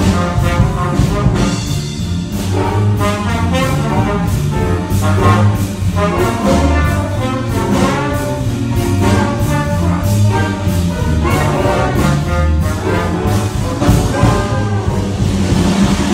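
Jazz big band playing a swinging jump blues arrangement, with trumpets and trombones to the fore over the rhythm section's steady beat.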